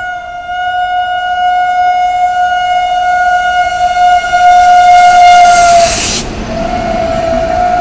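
WAP7 electric locomotive horn sounding one long, steady blast that grows louder, breaks off briefly about six seconds in, then resumes. The rumble of the passing train rises at the break.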